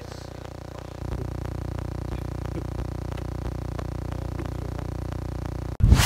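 Background music with soft held notes and a faint even pulse. Just before the end it cuts off suddenly into loud wind buffeting the microphone.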